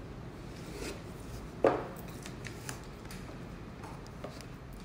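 Watch presentation boxes being opened by hand: small taps, clicks and the rub of box surfaces, with one sharper knock about a second and a half in.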